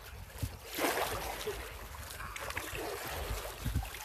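Paddle strokes splashing and river water lapping against an inflatable kayak, with a louder splash about a second in. Wind rumbles on the microphone.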